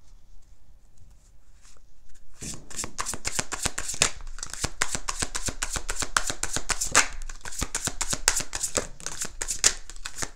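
Deck of tarot cards being shuffled by hand: a quick, dense patter of card snaps and slaps that starts about two and a half seconds in and keeps going.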